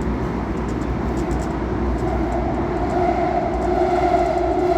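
CAF Série 500 Fase II metro train running between stations, heard from inside the car: steady running rumble and rail noise, with a motor whine coming in about two seconds in.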